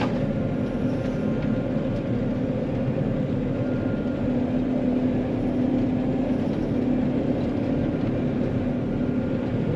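John Deere 9500 combine running with a steady, even drone while it drives between fields.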